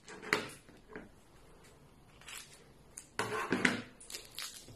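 Tabletop handling noises of a roll of clear packing tape and a wooden stick being taped down: a sharp knock about a third of a second in, faint rustling, then a short scraping, rubbing burst a little over three seconds in as the stick is pressed onto the tape.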